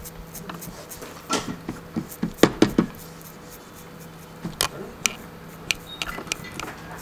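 A small hand tool scraping and ticking against a mobile CPU chip held in the palm while it is cleaned. There is a run of sharp clicks in the middle and a few single clicks later, over a faint steady hum.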